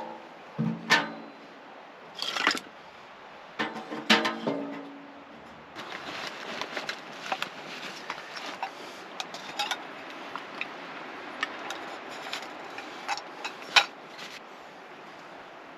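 Knocks and clatter of camp gear being handled, with two short ringing clanks in the first five seconds, then a run of light clicks and rustles.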